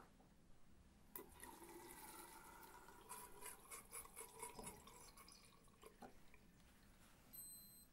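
Water running faintly from a bathroom mixer tap onto a washcloth held under it in the sink. The water starts about a second in and stops about five seconds in.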